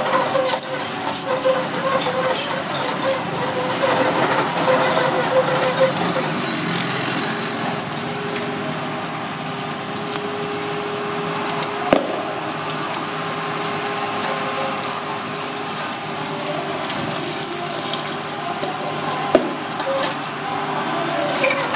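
Egg frying in hot oil in a steel wok, sizzling steadily, with a steel wok spatula scraping under it to turn it. The spatula knocks sharply against the wok twice, about halfway through and near the end.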